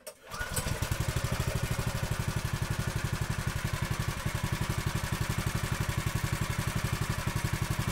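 Go-kart engine idling with a fast, even pulse. It builds up in the first half second, then holds steady and cuts off suddenly at the end.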